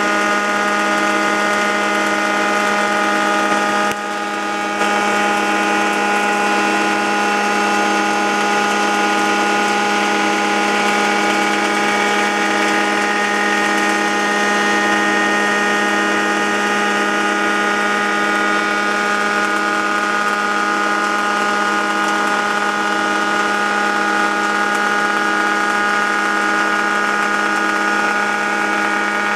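Arch moulding machine cutting a curved wooden moulding: the electric motors and spinning cutter head run steadily with a mixed hum and whine as the rubber feed wheel carries the arch past the cutter. The level dips briefly about four seconds in.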